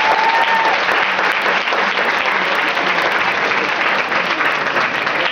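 Audience applauding: a roomful of people clapping.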